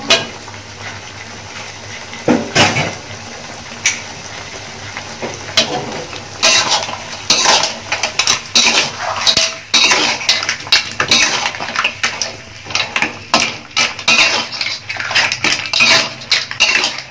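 Metal spatula scraping and clanking against a metal wok as green mussels in their shells and chunks of corn are stirred through a thick sauce. A few separate knocks come first, then from about six seconds in the stirring turns fast and continuous, with the shells clinking against each other.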